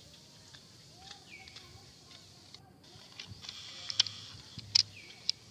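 Outdoor forest ambience with a couple of faint high calls that drop in pitch and then hold, and a few sharp clicks in the second half.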